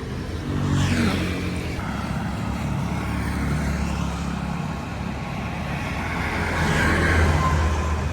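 Street traffic: motor vehicle engines running, with louder swells as vehicles pass about a second in and again around seven seconds.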